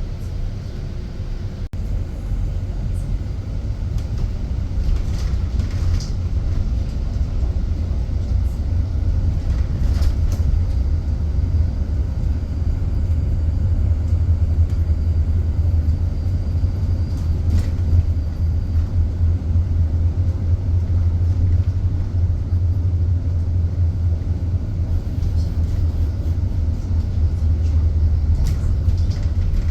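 Steady low road rumble inside a moving driverless bus, with a few faint ticks and rattles.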